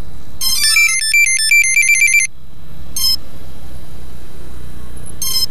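Pixhawk flight controller's buzzer playing a fast electronic tune of stepping notes for about two seconds, then giving two single short beeps a couple of seconds apart.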